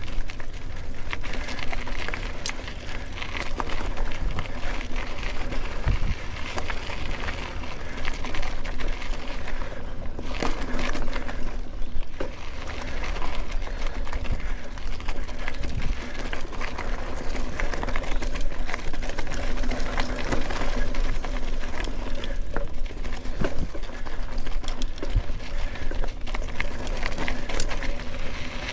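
Mountain bike rolling along a dirt and gravel single-track: tyre noise on the trail with frequent small clicks and rattles from the bike over bumps, over a low rumble.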